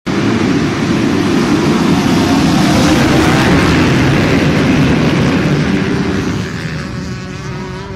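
A full field of motocross bikes accelerating hard together off the start line, a dense mass of engine noise. It fades from about six seconds in as the pack pulls away.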